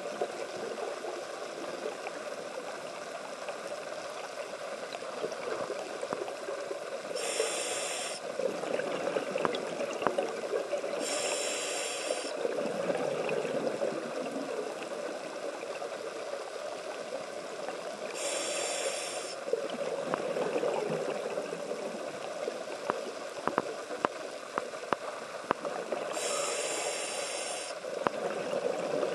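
Underwater sound from a diver's scuba regulator: four hisses of breath drawn in, a few seconds apart, with the rumble of exhaled bubbles swelling between them. A steady crackle of small clicks runs underneath.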